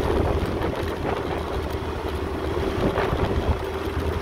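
Motorcycle running steadily while being ridden along a road, with a low rumble of engine and tyres and a faint steady hum.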